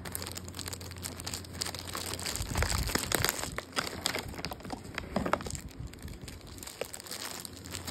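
Shiny plastic gift wrapping being crinkled and torn open by hand, a dense run of short crackles, with a few dull bumps about two and a half to three seconds in.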